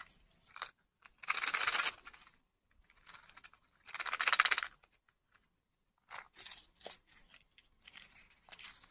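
Small cardboard box and plastic capsule from a toy-surprise lollipop being handled and opened: two crackling bursts about a second long, near one and four seconds in, then lighter clicks and rustles of plastic and wrapper.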